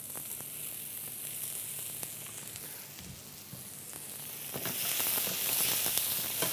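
Venison steak with thinly sliced ginger and spring onion sizzling in hot oil in a frying pan, a steady sizzle that grows louder about four and a half seconds in, with a few light clicks.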